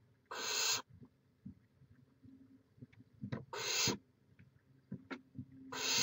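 Barn owls in a nest box giving three harsh, raspy hisses, each about half a second long and about two and a half seconds apart. This is the hissing 'snore' begging call typical of barn owl nestlings. Faint scratches and knocks come between the hisses.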